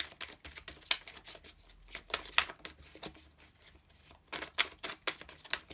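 A deck of oracle cards being shuffled by hand: an irregular run of crisp card flicks and slaps, busiest near the end.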